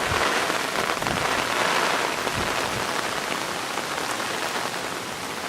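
Hurricane rain falling steadily, an even hiss with a few faint low bumps.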